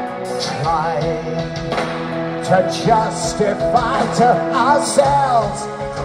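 Heavy metal band playing live, recorded from the audience: a wavering, bending lead melody over held chords and drums.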